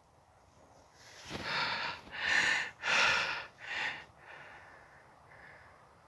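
A person breathing out heavily four times in quick succession, the second and third breaths the loudest.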